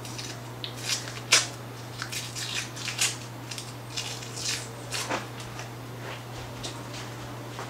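Paper wrapper being peeled off a piece of butter: irregular crinkles and soft rustles, thinning out toward the end.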